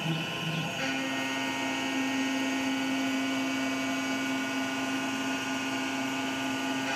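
MR-1 gantry CNC mill's spindle running at 8000 RPM, a 3/8" two-flute carbide end mill facing aluminum. It makes a steady whine with several held tones, and a low tone shifts pitch about a second in.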